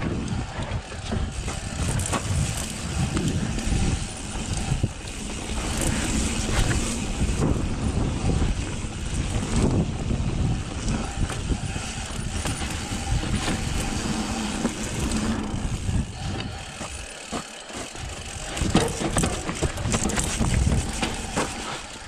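Mountain bike riding fast down a dirt trail: a steady rush of wind on the microphone with knocks and rattles from the bike over bumps.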